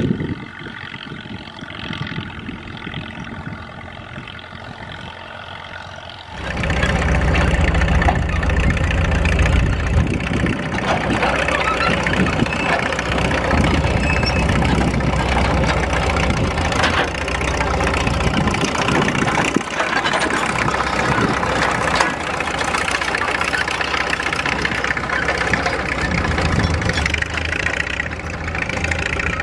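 1941 Caterpillar D2's four-cylinder diesel engine running steadily as the crawler pulls a two-bottom moldboard plow, quieter at first and then loud and close from about six seconds in.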